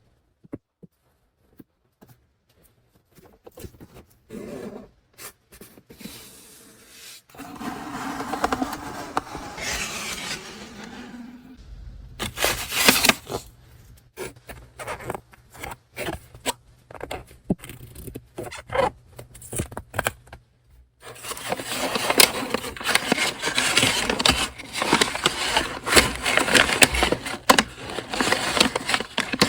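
Paper and cardboard stationery packaging being handled: scattered taps and short scrapes, a loud rustle about twelve seconds in, then steady close-up rustling and scraping of paper through the last third.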